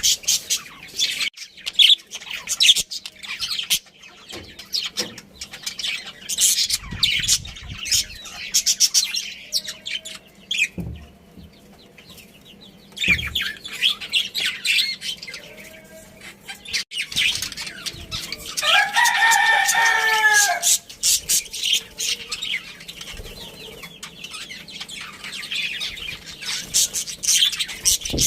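Budgerigars chirping and chattering in quick, high twittering runs. About two-thirds of the way through there is one longer, lower call of about two seconds that drops in pitch at its end.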